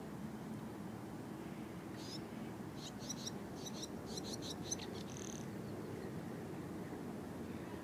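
A bird calling: a quick run of short, high chirps starting about two seconds in, ending in a brief buzzy note, over a steady low background rumble.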